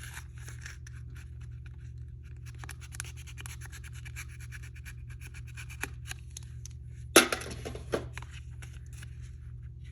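Small product packaging being handled and opened: scattered scratching and light clicks, with a loud crackle of packaging about seven seconds in, over a steady low hum.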